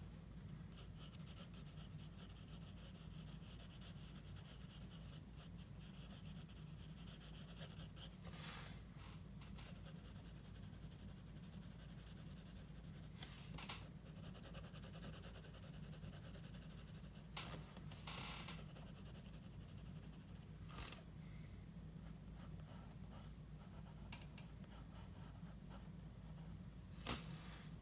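Drawing strokes on paper, quick repeated scratches of shading with a few firmer strokes, over a steady low hum.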